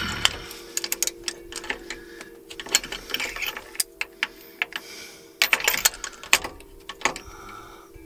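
Socket ratchet clicking in quick runs and clinking against metal while spark plugs are worked loose from the engine, over a steady hum.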